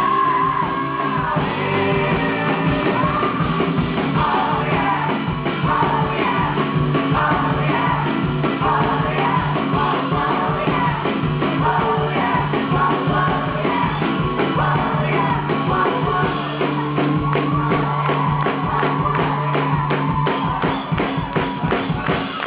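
Live rock song: a woman singing over a full band with a steady, driving drum beat.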